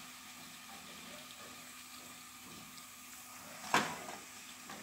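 Corn arepas frying in hot oil, a faint steady sizzle. A single sharp click of the tongs comes just under four seconds in, as an arepa is lifted out onto the paper towel.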